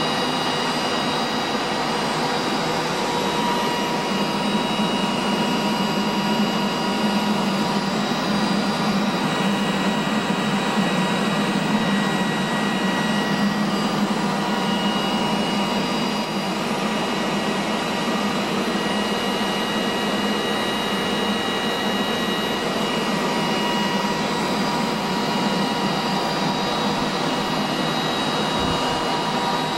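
Ampex 2-inch quadruplex videotape recorder running in playback: a steady machine noise with a whine of several high, steady tones.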